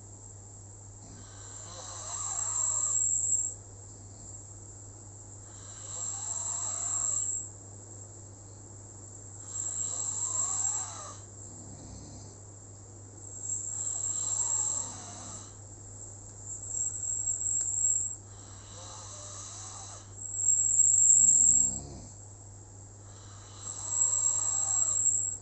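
Slow, regular snoring of a sleeper: one snore every three to four seconds, each about a second and a half long, over a steady low hum.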